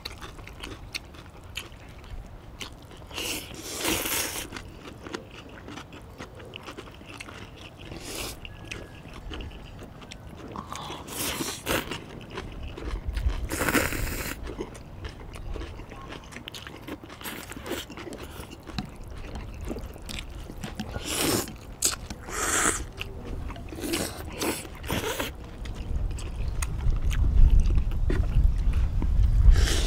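People slurping warm noodle soup in several separate half-second to one-second slurps, between quieter chewing and crunching of food. A low rumble builds near the end.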